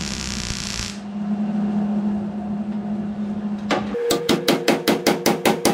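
MIG welder arc hissing and crackling for about the first second over a steady low hum. From about four seconds a quick, even music beat takes over.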